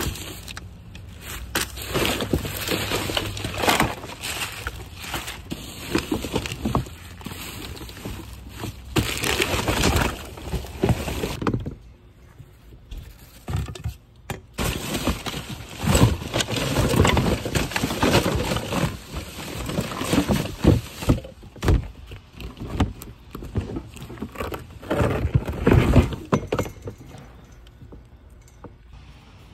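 Rummaging through a plastic wheelie bin of bagged trash: plastic bags rustling and crinkling, with bottles and cans knocking and clattering in irregular bursts. There is a short lull about twelve seconds in, and it quietens near the end.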